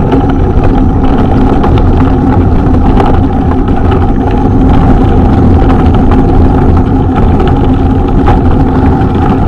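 Off-road vehicle's engine running steadily while riding along a dirt trail, loud and close, with a constant low hum and no change in revs.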